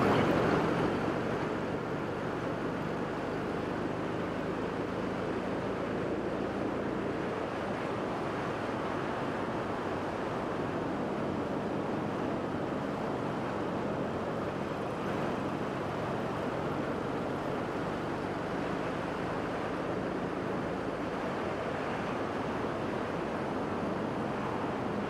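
Steady wind and road rush on a helmet-mounted lavalier mic while riding a Harley-Davidson Iron 883 Sportster at an even cruising speed. The bike's 883 cc air-cooled V-twin runs faint and steady underneath the wind.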